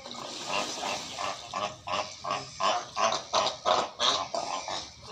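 Cape fur seal barking in a rapid run of harsh calls, about three a second, growing louder through the middle and fading near the end.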